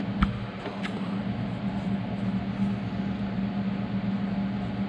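A steady mechanical hum from a running motor or fan, with two light clicks within the first second.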